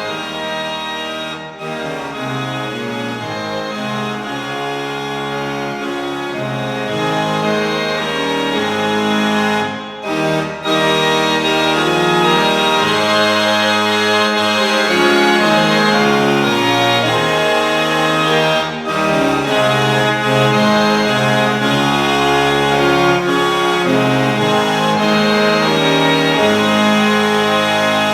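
Instrumental music of slow, held chords on a keyboard-like instrument, louder from about ten seconds in.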